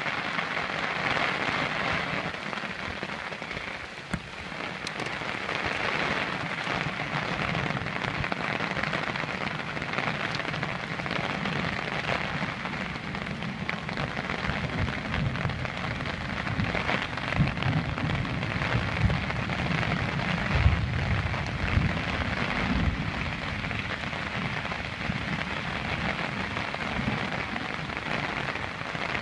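Heavy rain falling steadily on brush and a muddy dirt path. A few low bumps and knocks come through about halfway in.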